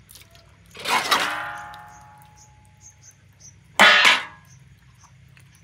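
Stainless steel plate clanging twice as wet gourd pieces are handled over it and set down on it: once about a second in, ringing on for a couple of seconds, and again more sharply near four seconds.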